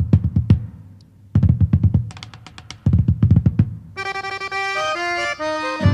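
Instrumental opening of a song: three quick runs of drum strokes separated by short gaps, then about four seconds in a sustained melody of held notes comes in.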